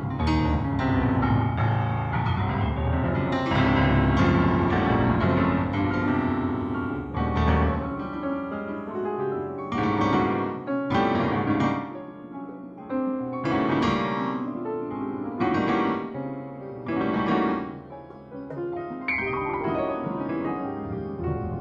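Piano-sounding keyboard music with a melodic line: chords and notes struck every second or two, each ringing out and fading.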